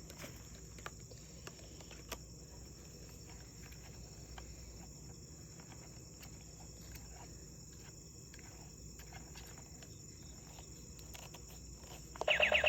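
Faint scattered clicks of plastic toy parts being handled, then near the end a short, loud electronic sound effect with rapid pulses from a battery-powered toy gun.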